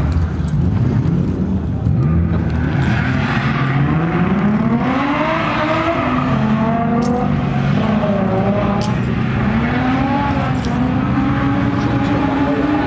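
Nissan 350Z's V6 engine revving hard on track, its pitch climbing and falling again and again as the throttle is worked, over a steady rushing hiss.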